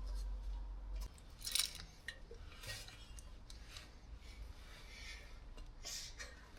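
Light metallic clinks, scrapes and rustles of tools and car parts being handled, in short scattered bursts, with a low hum that stops about a second in.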